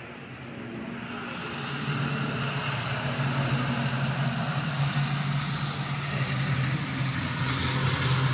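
Model freight train running along the layout track close by: a steady hum with rolling rumble that swells about a second or two in and stays loud as the cars pass.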